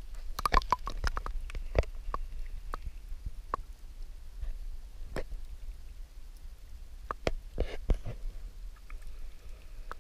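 Underwater sound picked up by a camera held in the sea: a steady low rumble with scattered sharp clicks and knocks, bunched near the start and again a little before the end.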